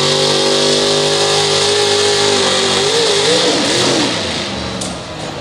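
Supercharged pulling-truck engine revving high and steady at the start line; about three seconds in its pitch wavers up and down, and about four seconds in it drops off.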